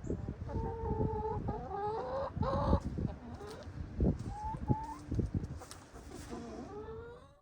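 A flock of domestic hens clucking and calling, with several drawn-out, sliding calls among the short clucks. The sound cuts off abruptly just before the end.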